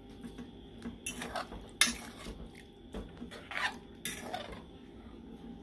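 A metal utensil clanking and scraping in a cooking pot, with several sharp knocks, the loudest about two seconds in, while stirring the chicken and pumpkin.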